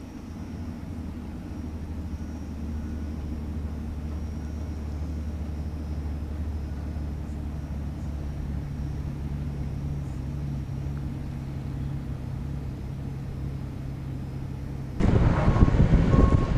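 An engine running at a steady speed, a low drone with no change in pitch. About 15 s in it cuts abruptly to a much louder wind-buffeted rumble with a short beep repeating.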